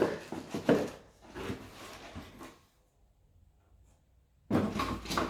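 Cardboard boxes and packaging being handled and set down: a run of knocks and scraping, a near-silent gap of about two seconds, then louder rustling and scraping near the end.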